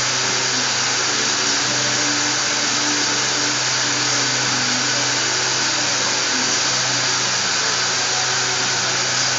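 Gottschild HBS 2600 automatic sanding and polishing machine running steadily: a dense, even hiss over a steady low hum.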